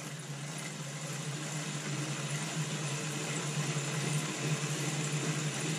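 Wheel-on turbo trainer humming steadily as the road bike's rear tyre spins against its roller, growing gradually louder.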